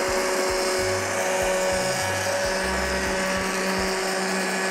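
Immersion stick blender running steadily at a constant pitch, submerged in a pot of fish soup and puréeing the vegetables into the broth; the motor cuts off suddenly at the end.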